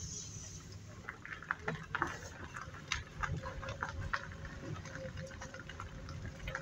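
Footsteps crunching through dry fallen leaves and brush, an irregular run of crackles and snaps.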